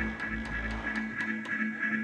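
Music playing through a sound system: a plucked-string line over steady held tones that pulse in a regular beat. A deep bass note fades out about a second and a half in.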